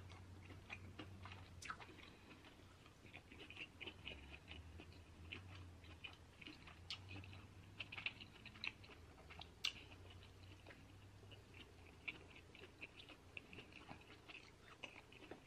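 Faint close-up chewing of king crab meat, with many soft wet mouth clicks scattered through and a few sharper clicks.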